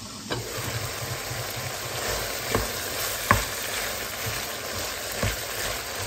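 Diced chicken sizzling as it fries in oil in a non-stick pan, stirred with a wooden spatula that knocks against the pan a few times.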